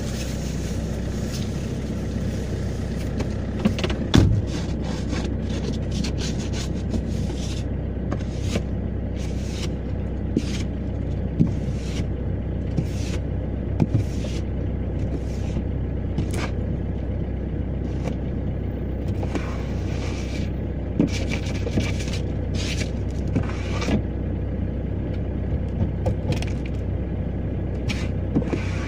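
Opel Y20DTH 2.0 four-cylinder turbodiesel idling steadily just after a cold start at minus three degrees. Over it, a sharp knock about four seconds in, then repeated irregular scraping strokes as frost is cleared from the windscreen.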